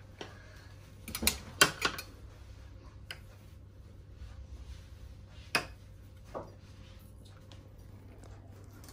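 Metal spoons clinking and scraping against a plate and serving platter as rice and chicken are served: a quick cluster of sharp clinks about a second in, then a few single clinks spread through the rest.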